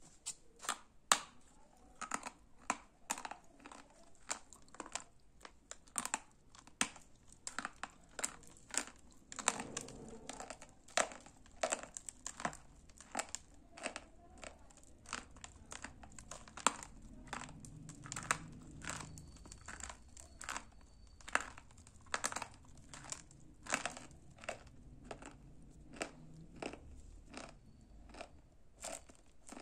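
Dry gray clay being bitten and chewed: a long run of sharp crunches and cracks, roughly one or two a second.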